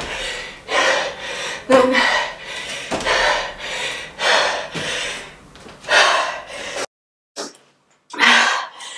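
A woman breathing hard during jump squats: loud, gasping breaths about once a second, with an occasional thud of feet landing on a mat. The sound cuts out completely about seven seconds in, then comes back with one more heavy breath.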